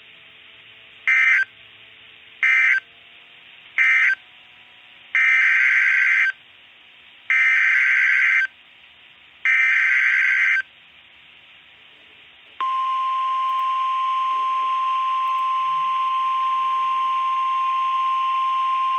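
Emergency Alert System (SAME) data tones on NOAA Weather Radio: three short bursts of buzzing digital data, the end-of-message code, then three longer bursts, the SAME header announcing a tornado warning. Then a single steady 1050 Hz warning alarm tone begins.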